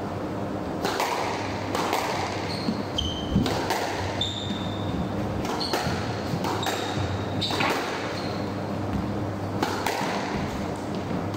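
Squash rally: the ball cracks off the rackets and the walls about once a second, mixed with short high squeaks of court shoes on the wooden floor.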